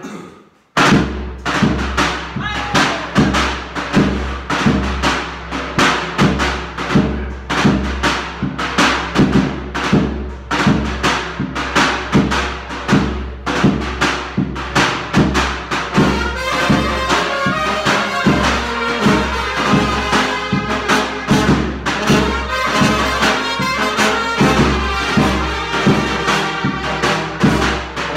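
Brass band of trumpets, saxophone and baritone horns playing a tune over the steady beat of a tapan bass drum. The music breaks off at the start and comes back in just under a second in.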